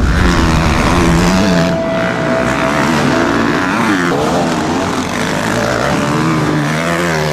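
Motocross dirt bike engines revving hard through a dirt corner. The engine note climbs and drops again and again, with one held high note for a moment about a second in.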